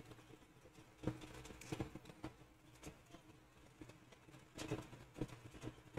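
Faint, irregular clicks and taps of a computer mouse and keyboard in use, over a low steady hum.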